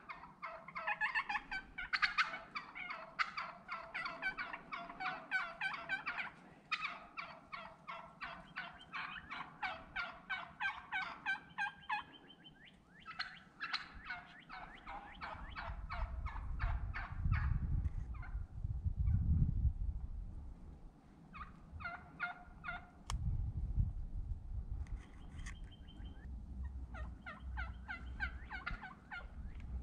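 Wild turkey hen yelping and cutting in long runs of rapid notes, several strings broken by short pauses: an agitated hen that wouldn't stop. A low rumble runs under the calls in the middle.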